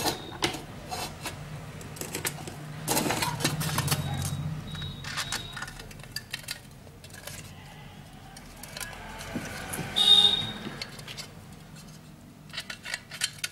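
Small metal clicks and clinks as push-on terminal connectors are handled, pressed onto an electric iron's heating-element terminals and worked with pliers. A brief high scrape about ten seconds in is the loudest moment, over a steady low hum.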